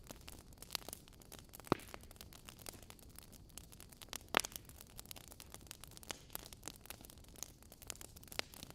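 Wood fire in a fireplace crackling: a steady run of small snaps and ticks from burning logs, with two louder pops about two seconds and four and a half seconds in.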